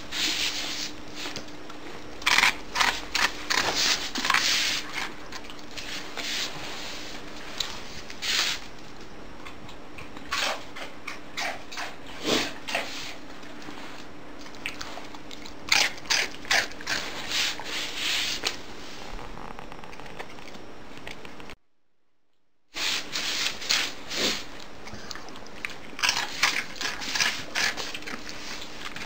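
A dog chewing and crunching, in irregular clusters of short crackly bites with pauses between. The sound breaks off entirely for about a second about three-quarters of the way through.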